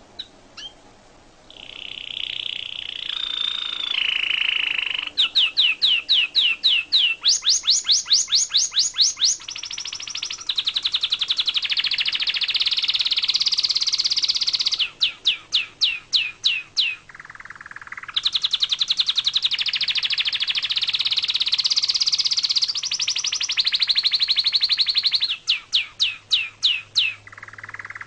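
Domestic canary singing a long, continuous song of rapid trills and runs of fast repeated sweeping notes, changing phrase every few seconds with only brief pauses.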